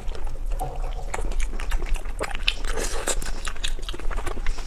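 A person eating close to the microphone, biting and chewing food with many short, irregular mouth clicks.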